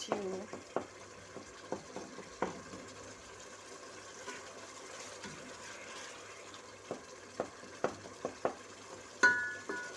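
Tomatoes cooking in a large metal pot (sufuria), a soft steady sizzle with a spoon now and then knocking and scraping against the pot. Near the end a loud metal clang rings briefly.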